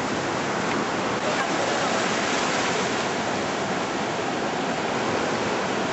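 Water pouring from plastic buckets into shallow surf, over the steady wash of small waves at the water's edge.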